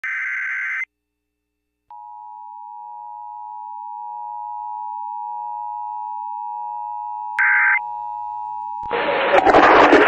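Emergency Alert System broadcast over AM radio: the end of a SAME header data burst (a harsh warbling screech), a second of silence, then the two-tone EAS attention signal held steady for about seven seconds. A second short data burst from the other station cuts in near the end of the tone, and an announcer's voice starts just after it.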